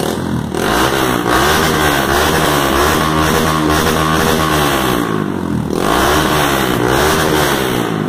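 Yamaha Fazer 150's single-cylinder engine revved through a Roncar Coyote Two-Way Junior exhaust with its valve opened for the sport sound. The revs are held up with the pitch wavering, drop back about five seconds in, then rise again and fall near the end.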